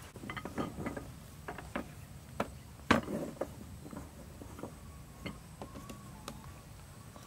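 Irregular light clicks and knocks of utensils and cookware being handled, the sharpest knock about three seconds in.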